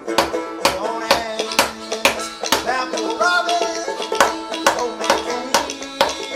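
Background music with plucked strings over a steady beat of about two strikes a second.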